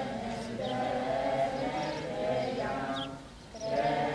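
A group of young people singing together in unison, holding long notes, with a short break between phrases about three seconds in.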